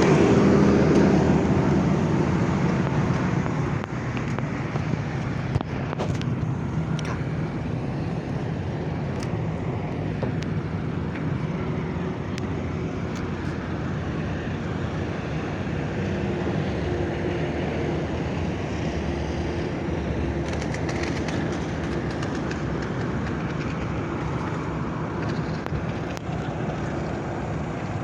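Heavy machinery engine running in a steady, even drone, louder for the first few seconds and then settling, with a few faint clicks over it.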